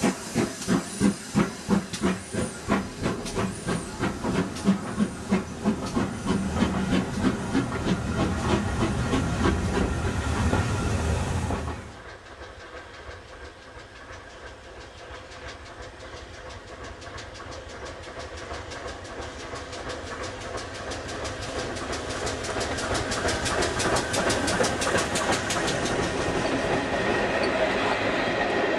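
GWR 4575-class small prairie tank engine 5542 working past close by: loud, evenly spaced exhaust beats over steam hiss, the beats running together after about eight seconds. After an abrupt drop about twelve seconds in, a steam train approaches along the line, its sound rising steadily until the coaches roll past with wheels clacking over the rail joints near the end.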